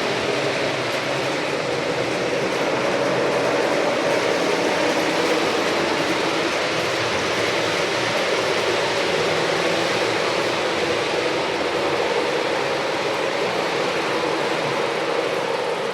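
O gauge model train running along the layout's track with a steady rolling hum.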